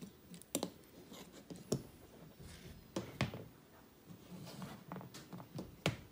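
3D-printed plastic finger parts being handled and set down on a cutting mat: several sharp plastic clicks and knocks, with light rubbing in between.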